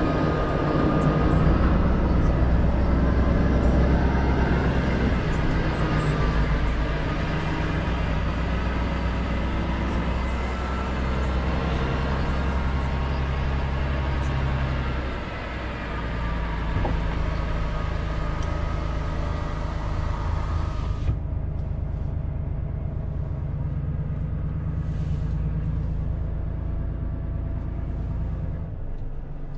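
Volvo truck's diesel engine running at low speed while the truck creeps along, heard from inside the cab as a steady low drone. The engine note shifts about halfway through.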